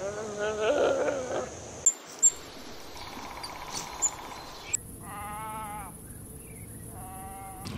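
Animal calls edited one after another. A wavering pitched cry comes first, then a few sharp clicks, then two short pitched calls with a quick wobble, about a second and a half apart, near the end.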